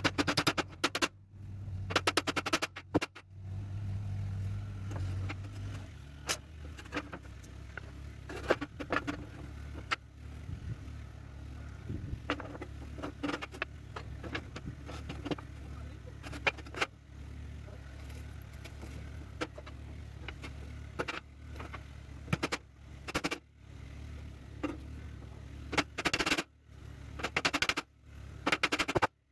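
Workshop sounds of wooden folding chairs being assembled: irregular sharp knocks and clicks over a steady low hum, with brief rattling bursts near the start and near the end.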